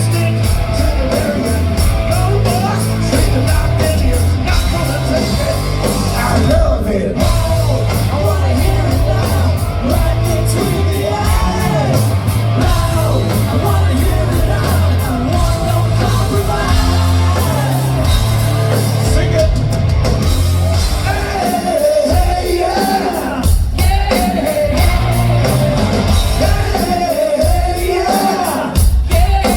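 Loud live rock band playing, with a steady drum beat and singing over the top.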